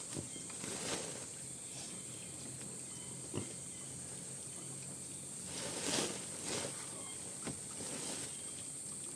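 Outdoor rural ambience: a steady, high-pitched insect drone throughout, with a few short rustles and knocks, the loudest about six seconds in.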